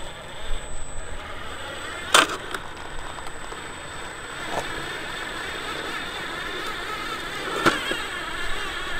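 Small electric motor and gears of a 1/10-scale RC crawler truck whining, the pitch wavering as the throttle changes, with two sharp knocks, one about two seconds in and one near the end.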